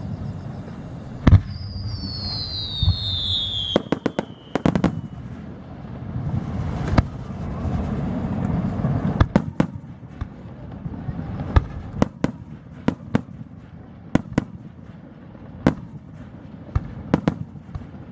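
Aerial fireworks going off: a loud shell burst about a second in, a high whistle falling in pitch, then a string of irregular sharp cracks and pops over a low rumble.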